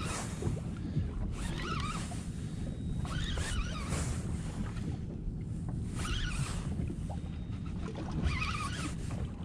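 Steady low hum of the boat's motor idling, with wind and water, while a spinning reel is cranked in short spells that each give a brief wavering whir.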